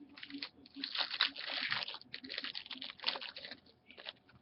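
A foil trading-card pack wrapper crinkling as it is torn open and handled, in a dense run for about three and a half seconds, followed by a few light clicks and rustles near the end.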